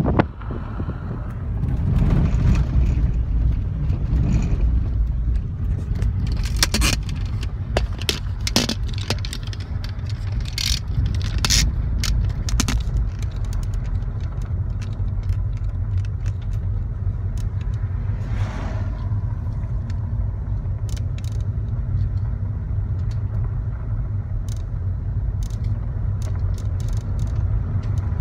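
A car driving along an unpaved dirt road: a steady low rumble of engine and tyres, with scattered sharp rattles and clicks that are thickest from about six to thirteen seconds in.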